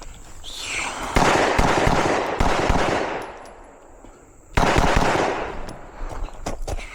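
Rapid strings of shots from a compensated 9mm PSA Dagger pistol: one burst of fast fire from about a second in lasting some two seconds, a pause, then a second quicker burst a little past halfway.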